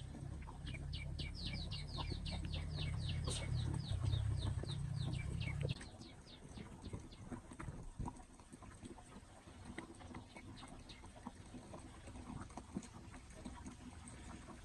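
Ducklings peeping in a quick run of high, falling notes, about six a second, over a low rumble that cuts off suddenly about six seconds in. After that come only faint scattered peeps and small clicks.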